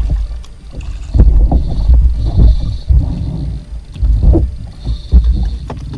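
Water sloshing against a fishing kayak's hull with irregular low rumbling bumps and a few sharp knocks as the boat is handled.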